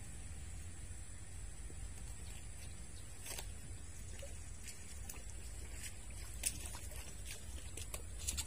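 Outdoor riverside ambience: a steady low rumble under a thin, steady high-pitched whine, with a few short sharp clicks scattered through it, the clearest about three and six and a half seconds in.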